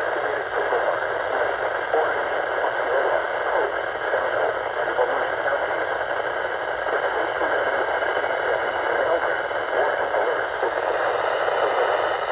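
Steady radio static and hiss from a NOAA Weather Radio receiver on a weak signal.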